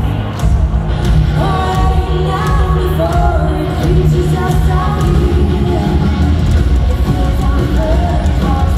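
Metal band playing live, with distorted electric guitars, bass and drums, heard loud from the audience. A female lead vocal sings over the band from about a second in.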